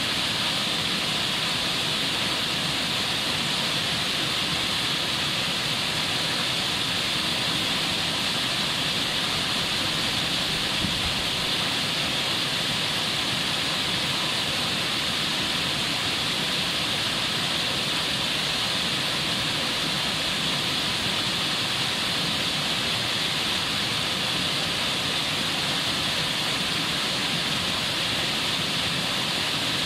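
Stream rushing over boulders in shallow white-water rapids: a steady, even rush of water with a bright hiss.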